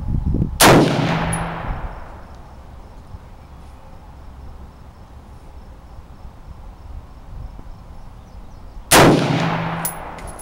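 Two gunshots about eight seconds apart, each dying away in a long echo, with light metallic clinks after each shot.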